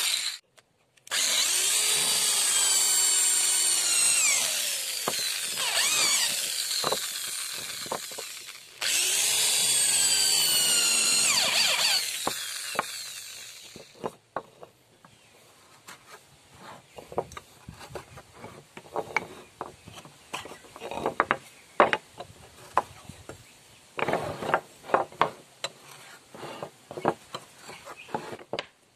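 A bench-mounted electric woodworking power tool cutting hardwood. Its high, loud motor whine sags in pitch as the wood is pushed through, stops briefly twice, and winds down about twelve seconds in. After that, a series of short, quieter scraping strokes as a small wooden block is worked by hand on the bench.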